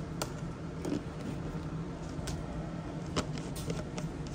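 Steady low hum with a few light clicks and taps of kitchen utensils.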